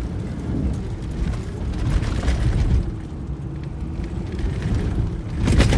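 Ford F-350 pickup running under load while plowing snow: a heavy, steady low rumble, with a loud thump near the end.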